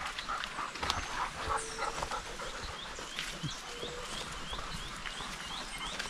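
A dog panting as it walks the trail. Through the second half, a rapid series of high chirps from the forest repeats about three times a second.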